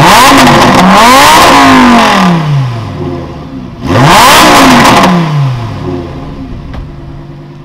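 Lamborghini Huracán's V10 revved hard twice while standing still, each rev climbing quickly in pitch and then falling back slowly to a steady idle. The second rev comes about four seconds in.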